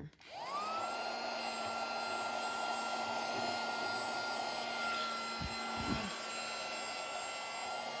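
Miniature USB-powered handheld vacuum cleaner with its bristle brush attachment, switching on. Its motor whine rises quickly to speed and then runs steadily, with two low bumps a little past the middle.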